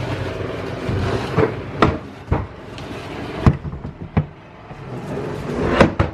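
A series of sharp knocks and thuds, about six of them spread irregularly, the loudest near the end, like lids or doors being handled.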